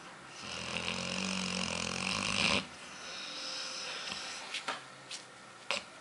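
A sleeping chocolate Labrador snoring: one long, loud snore of about two seconds that cuts off sharply, followed by a softer breath and a few short clicks near the end.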